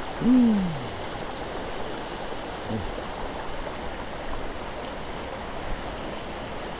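Shallow river water flowing steadily. Right at the start, a short falling hum from a man's voice, and a few faint clicks a little past the middle.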